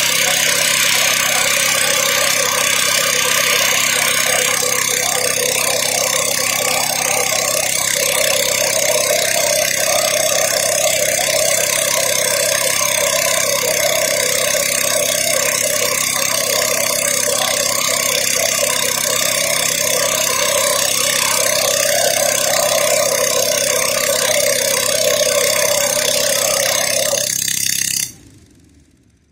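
Rail-end preheating burner for thermit welding, blowing a steady loud hiss with a low hum underneath. It cuts off abruptly about 28 seconds in.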